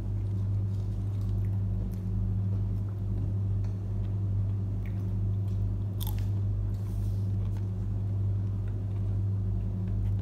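Eating sounds of chewing and crunchy bites close to the microphone, with one sharper crunch about six seconds in, over a steady low machine hum that is the loudest thing throughout.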